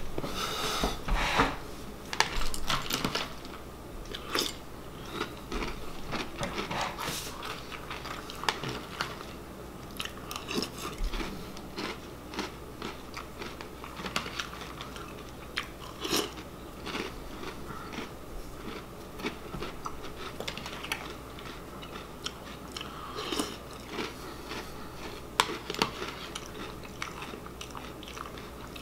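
A person crunching and chewing mouthfuls of Apple Cinnamon Cheerios, with a metal spoon clinking and scraping in a plastic bowl in irregular, scattered clicks. A cluster of louder knocks and rustles comes in the first few seconds.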